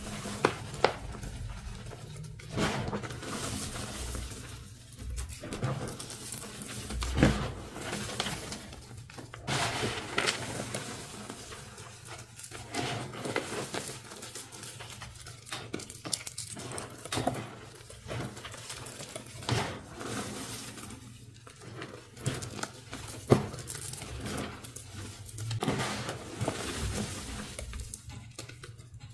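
Hands crushing and sifting crumbly dyed gym chalk reforms in a plastic bin: irregular crunching and grainy rustling, with a few sharper crunches.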